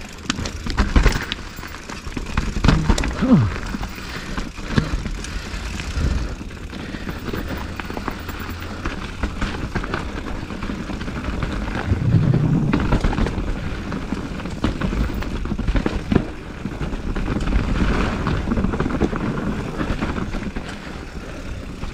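Mountain bike riding down a dirt trail: a continuous rumble of tyres and bike over rough ground, with sharp knocks as it hits bumps and a few short falling squeals.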